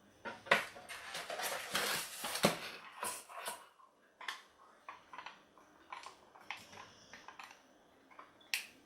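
Hard plastic toy parts being handled: a dense run of rustling, clicks and knocks in the first few seconds, then scattered single clicks and taps.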